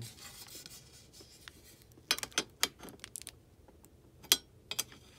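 Plastic clicks and rattles of a Game Face GF76 airsoft rifle's top cover being worked back into place by hand: faint handling, then a few sharp separate snaps, the loudest a little past four seconds in.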